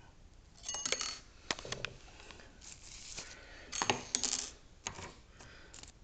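Metal lock-picking tools clicking and clinking against a brass Mila Evolution euro-profile cylinder: two quick clusters of sharp metallic clicks with a brief ring, about a second in and about four seconds in, with a few single clicks between.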